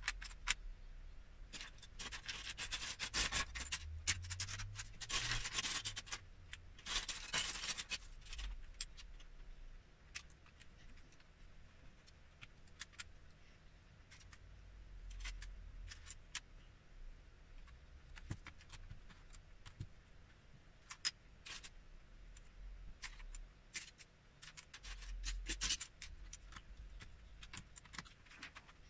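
Plastic Lego bricks being handled: a busy stretch of rattling and clattering of loose pieces between about two and eight seconds in, then scattered sharp clicks and taps as bricks are pressed onto the model.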